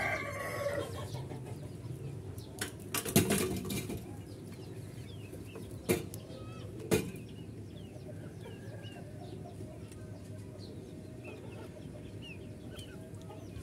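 Domestic chickens clucking and chicks peeping in a wire cage, with short high peeps coming thick in the second half. A few sharp knocks in the first half are the loudest sounds.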